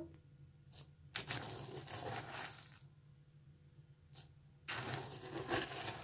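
Metal measuring spoon scooping through dry hamster seed-and-pellet mix in a plastic tub: soft rustling and scraping of seeds and pellets in two spells of a second or two, with a couple of light clicks.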